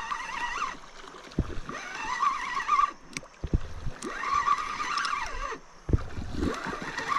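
Fishing reel cranked in bursts while a hooked turtle is reeled in, giving about four whirring spells of a second or so each with short pauses between, and a few low knocks.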